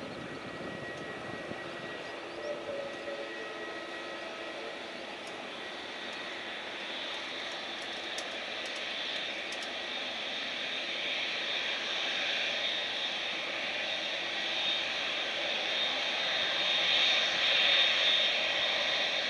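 Boeing 787's General Electric GEnx turbofans running at taxi power as the airliner turns onto the runway: a smooth, quiet whine and hiss that grows gradually louder through the second half.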